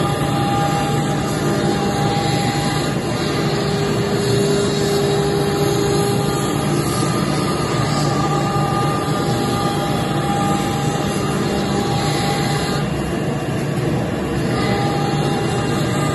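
AKM1325C1 CNC router spindle running and milling plywood along a gear-tooth outline: a steady, loud machining noise with a few held tones that change pitch every few seconds as the head moves through the cut.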